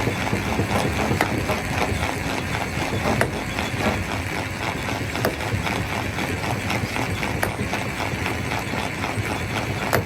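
Rock crusher machine running, a steady mechanical rumble with a fast, even clatter and a few sharp cracks, as stone is broken.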